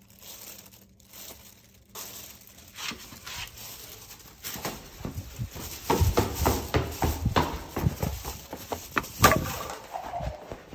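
Black plastic garbage bags rustling as they are handled, then quick running footsteps with the phone jostling, from about four and a half seconds in.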